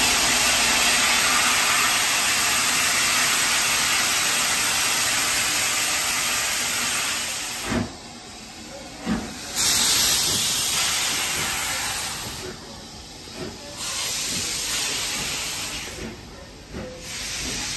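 Steam locomotive 6233 Duchess of Sutherland, an LMS Princess Coronation Class Pacific, hissing loudly with escaping steam. One long continuous blast lasts about seven seconds. Then two short thumps, another strong blast, and shorter bursts of hiss with quieter gaps as the engine pulls away.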